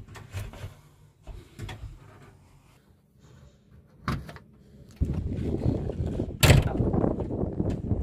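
Latches and handles of a JCB 3DX backhoe loader's cab door and window being worked: a few faint clicks and a clack, then from about five seconds in a loud rough rumble with a sharp bang about a second and a half later.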